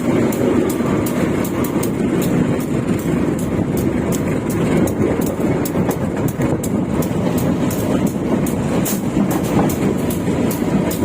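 KA Lokal Merak passenger train running on the line, heard from inside the car's toilet: a loud, steady rumble of the wheels on the rails, with rapid sharp clicks and rattles over it, about four a second.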